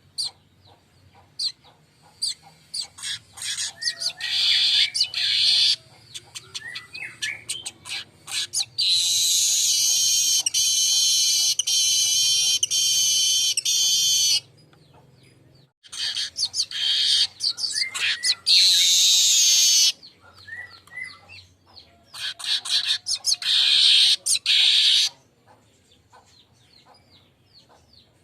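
Manyar (weaver) song, played as a lure call: bursts of rapid ticking chatter that run into long, high, buzzy wheezing phrases, four times, the longest about five seconds.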